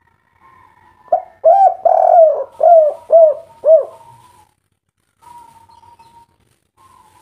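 Spotted dove (tekukur) cooing in the 'kuk 3' call style: a quick run of about six loud coos, each rising and falling in pitch. Faint thin whistle-like tones follow.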